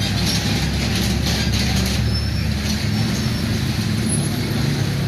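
Road traffic at a level crossing: a heavy vehicle's engine running with a steady low hum, alongside general traffic noise.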